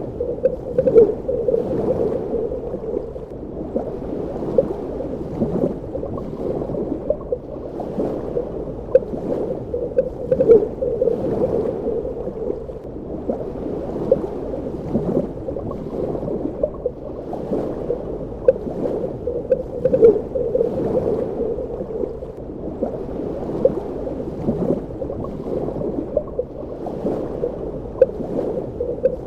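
Underwater ambience: a continuous muffled rumble of water with frequent bubbling and gurgling pops.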